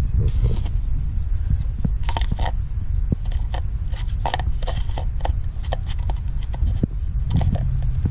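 Distributor dust cover being handled and pressed into place over the points: a run of small clicks and scrapes, over a steady low rumble.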